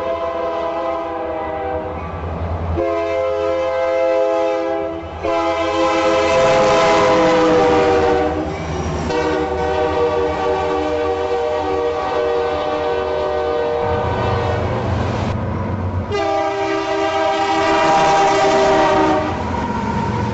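Diesel freight locomotive air horn sounding a series of long blasts, a steady chord of several notes that dips in pitch about eight seconds in, over the low rumble of the train.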